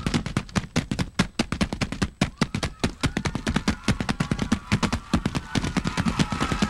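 Crumpled brown paper bags being slapped and crunched rapidly in front of a microphone as a mock drum solo: a fast, irregular run of sharp crackling smacks, several a second.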